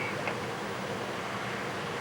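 Steady rushing noise of a jet airliner's engines on approach, even and without change.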